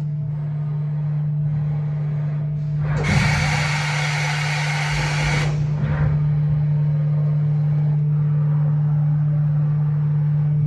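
Mori Seiki NH 4000 DCG horizontal machining centre running, heard through its enclosure, with a steady low hum. About three seconds in, a loud hiss starts, lasts about two and a half seconds and stops suddenly, leaving the hum.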